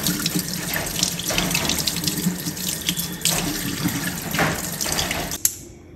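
Kitchen faucet running into a stainless-steel sink, water splashing unevenly over a fish fillet being rinsed by hand. The water stops abruptly with a sharp click near the end.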